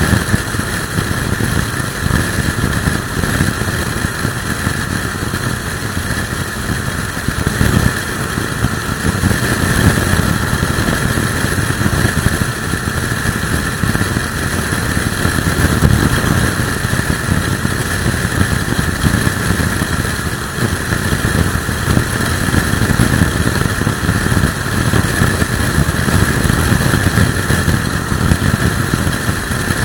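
Motorcycle cruising with its engine running steadily, half buried under a heavy, fluttering rumble of wind on the microphone from a strong crosswind.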